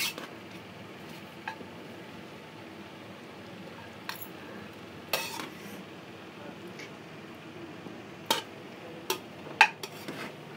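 A serving spoon scraping and clinking against a metal cooking pot and a plate as cooked biryani rice is dished out: about seven scattered clinks, the loudest near the end.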